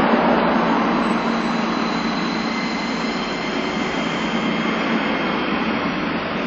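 Nagasaki Electric Tramway articulated low-floor tram pulling away from a stop. Steady running noise with a faint high whine from its motors, easing slightly as it moves off.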